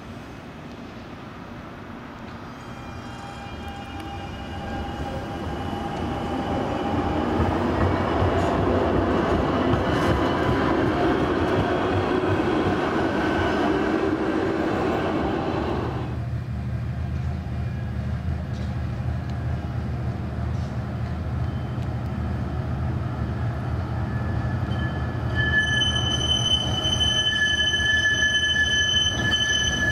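Electric tram approaching and running past close by on street track, loudest from about eight to sixteen seconds in. After a sudden change, a tram rounds a tight S-curve, and its wheels squeal in several high steady tones through the last few seconds.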